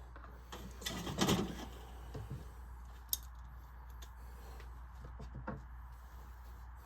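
Hand tools and small metal parts being handled at a workbench: irregular clicks and knocks, a cluster of clatter about a second in and a single sharp click about three seconds in.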